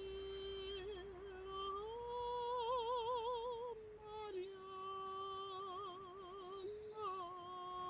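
A woman singing unaccompanied: a slow melody of long held notes with wide vibrato, rising to a higher note about two seconds in and falling back near the middle.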